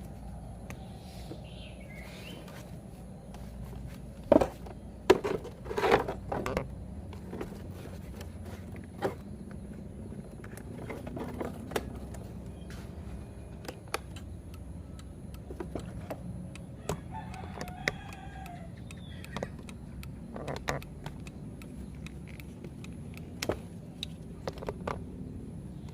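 A rooster crows: one long crow about seventeen seconds in, with a fainter call about two seconds in. Sharp short clicks and knocks come and go throughout, loudest in a quick run of four or five about four to seven seconds in.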